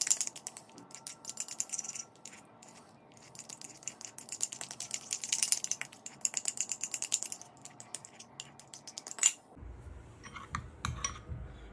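A utensil beating a wet mashed-banana and egg-yolk mixture in a bowl, clicking rapidly against the bowl in spells with short pauses. Near the end the clicking gives way to a low hum with a few scattered clinks.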